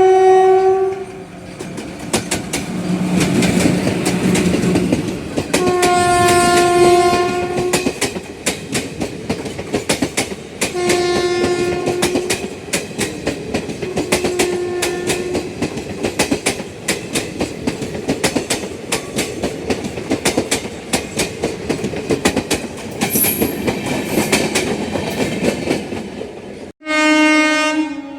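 Passenger train wheels clattering fast and continuously over rail joints, with the locomotive's horn sounding several times. Near the end the sound breaks off suddenly and another horn blast follows.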